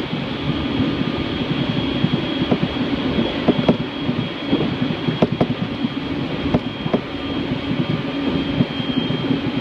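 Running noise inside a moving train: a steady rumble of wheels on rail, broken by irregular clicks and knocks from rail joints, with a thin steady high whine.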